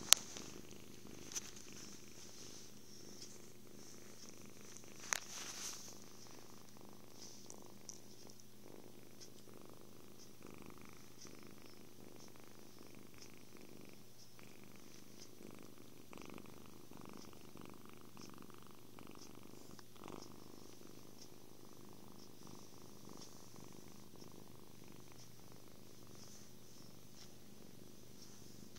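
Kitten purring steadily and contentedly, held close to the microphone. A sharp click at the very start and a smaller one about five seconds in are the loudest moments.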